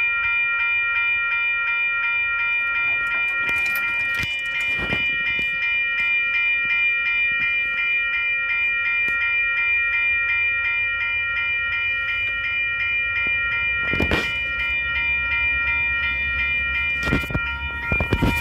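Railroad grade crossing warning bell ringing steadily in rapid, even strokes, the signal that a train is approaching the crossing. A low train rumble grows over the last few seconds, and there are a few sharp knocks.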